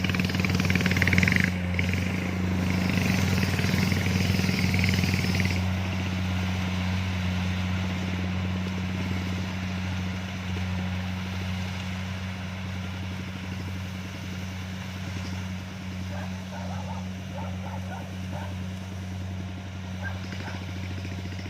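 Kubota DC-70 combine harvester running, a steady low engine drone. Louder mechanical noise rides on top for the first five seconds or so, then drops away, leaving the quieter drone.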